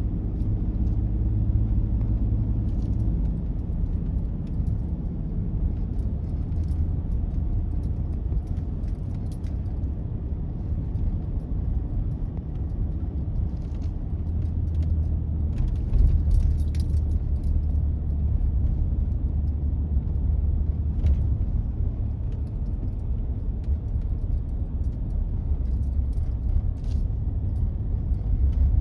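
A truck driving on the road: a steady low engine and road rumble, with faint light rattling.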